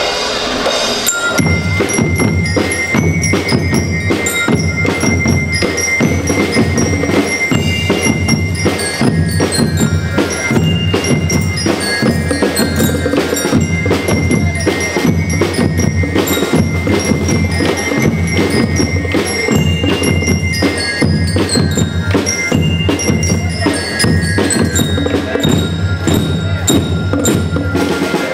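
School rhythm band playing: bell lyres (marching glockenspiels) ring out a fast melody over a steady beat of snare and bass drums. The full band comes in about a second in.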